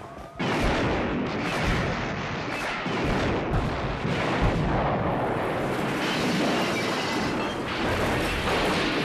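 Film soundtrack with loud, continuous booming and crashing noise that cuts in abruptly about half a second in, with music faintly under it.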